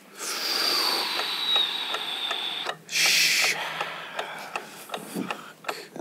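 A small rolled slip of paper being unrolled and handled, with light crinkling clicks. A long breathy hiss fills the first couple of seconds, and a brief louder rustle comes about three seconds in.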